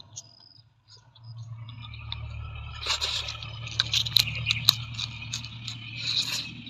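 Close-miked food sounds: soft wet rustling with many small sharp clicks and crackles, busiest in the second half.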